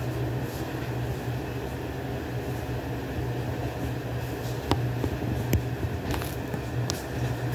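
A steady low mechanical hum, with a few light clicks and taps in the second half.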